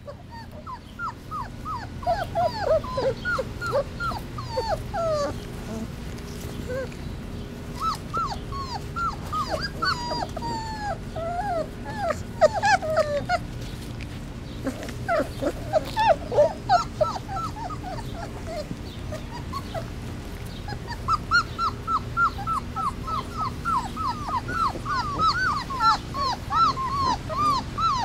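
A litter of three-week-old Basset Hound puppies crying and whimpering for their mother: many short, high-pitched cries that overlap. They ease off briefly about two-thirds of the way through, then come again in a steady run of about two cries a second near the end.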